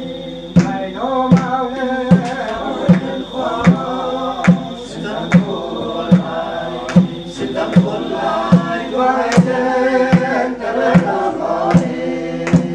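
A group of men and women chanting a song together in chorus, kept in time by a drum beaten about once every 0.8 seconds.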